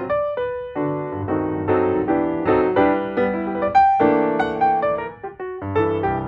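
Background piano music: a melody of struck notes, each fading after it sounds.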